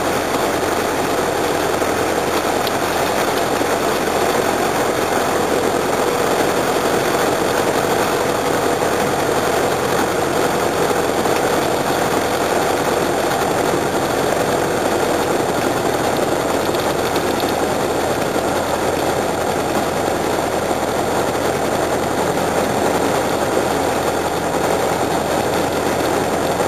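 Light aircraft's piston engine running steadily while the plane taxis along the runway.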